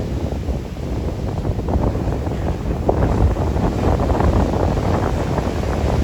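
Rough post-storm surf breaking and washing on the beach, with wind buffeting the microphone in a steady low rumble.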